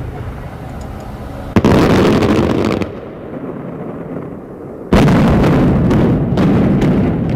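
Fireworks and demolition explosives going off for a hotel tower implosion: two sudden loud blasts about three seconds apart, each trailing into a noisy rumble, the second one longer.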